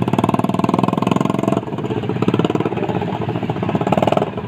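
Motorcycle engine running under way with a fast, even pulsing; the engine note drops about a second and a half in and swells briefly again near the end.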